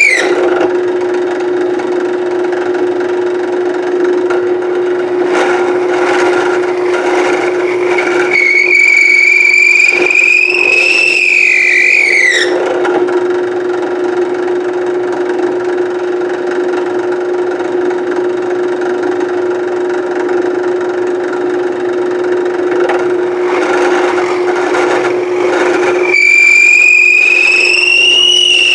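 Woodworking power tool running with a steady hum. Twice a high whine with overtones rises slowly for about four seconds and then drops away as the tool eases off, once near the middle and once near the end.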